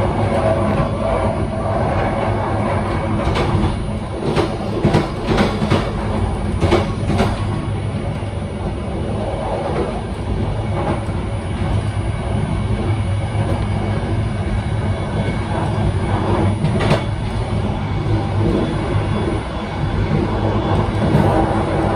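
Passenger train running along the track, heard from its rear cab: a steady low rumble, with a run of sharp wheel clicks over rail joints a few seconds in and another click later on.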